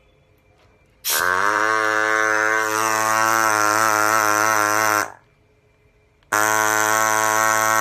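Micro scraper handpiece switched on and buzzing with a steady, unchanging pitch for about four seconds, cut off sharply, then switched on again about a second later.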